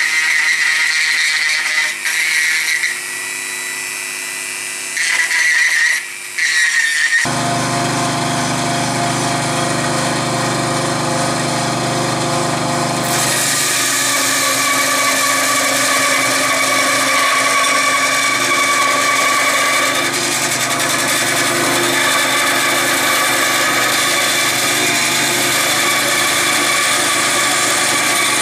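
A handheld rotary tool whines at high speed as it grinds inside a small wooden box, with dips as it comes off the work. About seven seconds in it gives way to a benchtop saw's motor running steadily, changing in tone a few seconds later.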